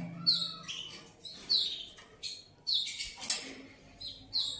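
Young F1 Yorkshire-cross canary giving a string of short chirps, roughly one or two a second, each a quick high note sliding down in pitch, the loudest about three seconds in.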